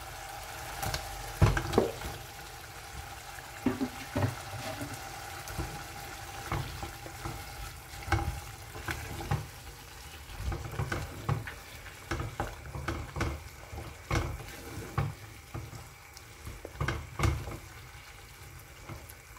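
Diced chicken breast tipped into a granite-coated pot of simmering tomato sauce, then stirred with a wooden spoon. Repeated knocks and scrapes of the spoon against the pot, from about a second in, over the steady sizzle of the sauce cooking.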